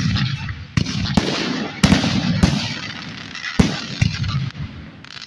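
Aerial fireworks shells bursting overhead: a quick run of about six sharp booms in the first four seconds, each followed by crackle and echo, dying down near the end.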